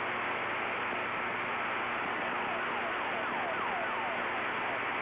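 Practice emergency locator transmitter (ELT) signal received over the aircraft radio: a repeating falling tone sweep, about three or four sweeps a second, coming in about two seconds in and fading near the end. Under it runs a steady hiss of radio static and cabin noise.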